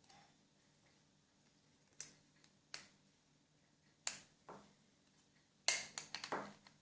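Small plastic parts of a digital thermostat clicking and knocking as they are handled and pressed into place: single sharp clicks spaced about a second apart, then a quick cluster of clicks near the end.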